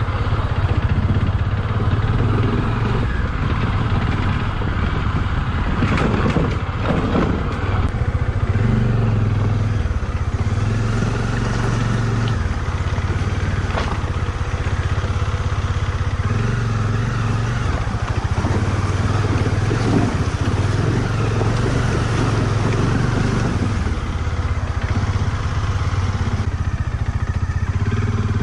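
Motorcycle engine running while riding, its note rising and falling every few seconds with the throttle, with a few knocks about six seconds in.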